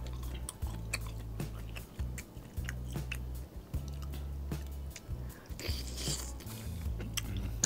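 Close-miked eating sounds of a person chewing king crab leg meat: many small wet mouth clicks and smacks, with a short louder sucking sound about six seconds in as a piece dipped in butter sauce goes into the mouth.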